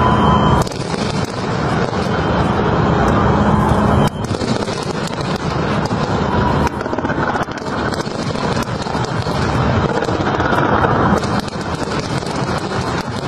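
Fireworks display: a dense, continuous crackle and rumble that changes abruptly twice, about half a second and four seconds in.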